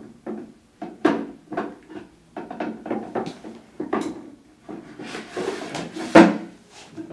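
Bamboo drawer being fitted into a wooden cart: the drawer slides and scrapes along its wooden runners with irregular wood-on-wood knocks, then is pushed shut with the loudest knock about six seconds in.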